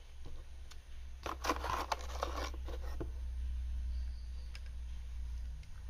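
Rustling and clicking of a cardboard box and wire leads being handled, with a flurry of scrapes and clicks about a second in, over a steady low hum.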